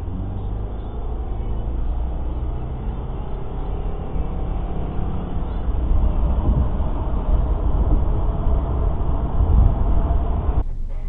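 Steady low rumble of road and engine noise inside a car cruising on a highway, picked up by a dashcam microphone. It cuts off abruptly near the end.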